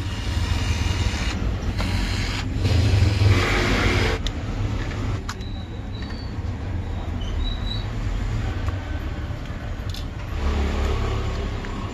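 Small electric screwdriver whirring in short runs as it backs screws out of a plastic power-tool battery pack, for about the first four seconds. Then come sharp plastic clicks and creaks as the case is pulled open, over a steady low hum.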